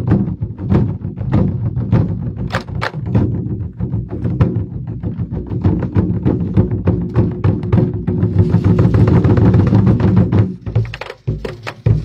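Twenty-Four Festive Drums ensemble playing large barrel drums with sticks: rapid, loud strokes in unison, building into a dense roll about eight seconds in, then breaking off briefly near the end before the strokes start again.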